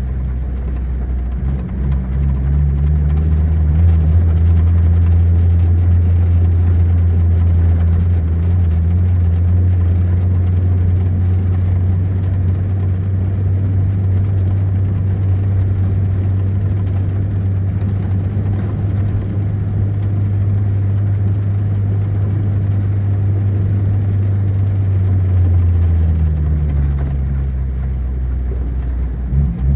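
Car engine and road noise heard from inside the moving car, a loud steady low drone. The engine note shifts in pitch a couple of seconds in and again near the end.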